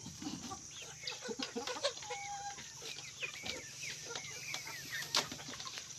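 Chickens clucking in short, rising and falling calls, with scattered soft clicks and rustles.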